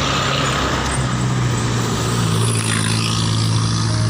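Large bus engine running close by, its low hum stepping up in pitch about a second in, over a steady haze of road and traffic noise.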